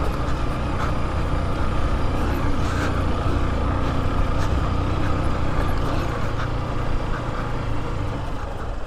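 Motorcycle engine running with a steady note as the bike rides along a rough dirt track, with a low rumble and a few faint knocks.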